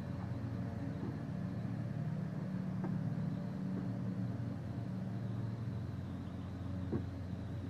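A steady low motor hum, with two faint knocks, about three seconds in and near the end.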